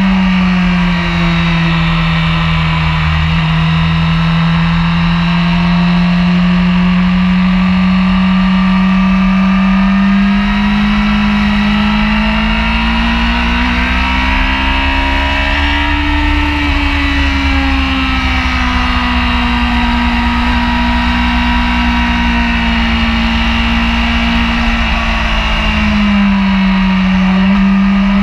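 Honda sport bike's engine running hard through a lap, heard from the rider's position over steady wind rush. The engine pitch sags early, climbs slowly to a peak about halfway through, eases back, and dips again near the end.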